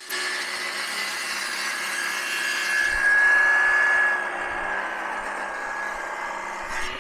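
An electric power tool running steadily and cutting into wood, with a constant whine. It grows louder for about a second midway through.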